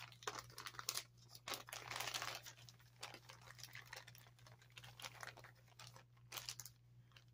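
Clear plastic bags crinkling and rustling as they are handled, densest in the first two or three seconds, then a few sparser crackles, over a faint steady low hum.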